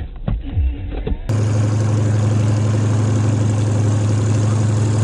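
A few short knocks and rattles from inside a car leaving the road. About a second in, these give way to the steady, even drone of a single-engine propeller plane's piston engine as it flies low over a runway.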